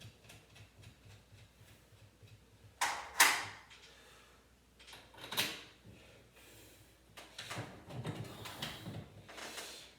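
Knocks and rattling from garage door hardware being handled, with a loud clank about three seconds in, another about five seconds in, and a busier run of rattling over the last three seconds.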